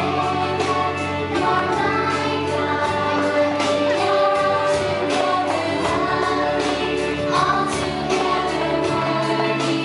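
A song with group singing over a steady beat, playing for the children's dance.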